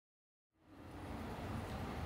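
Dead silence, then about half a second in railway-station ambience fades in: a steady low rumble with a faint hum.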